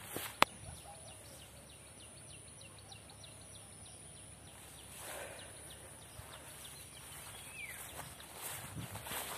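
Outdoor ambience among trees and tall grass: short high chirps repeating about four a second over a steady high drone, with one sharp click about half a second in and footsteps through vegetation toward the end.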